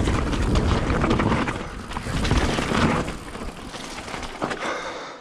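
Mountain bike riding fast down a wet dirt trail: tyres rolling over mud and stones, the bike rattling and clattering over bumps, with wind rumbling on the microphone. Loudest for the first few seconds, then easing off toward the end.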